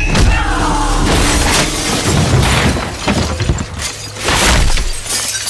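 A window shattering as a body crashes through it, followed by several further crashes of falling glass and debris.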